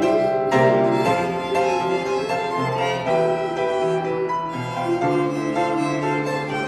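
Violins playing a sustained melody with vibrato over a steady chordal accompaniment, in an instrumental passage with no singing.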